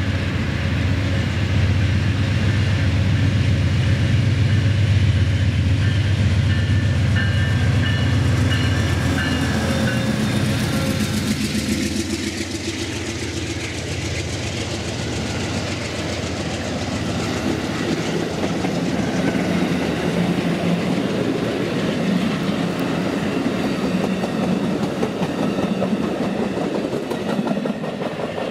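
Amtrak GE Genesis diesel locomotive passing at close range under power, starting up after a stop, with a steady deep engine drone that fades about ten seconds in. Its stainless-steel passenger cars follow, with wheel rumble and clickety-clack over the rails.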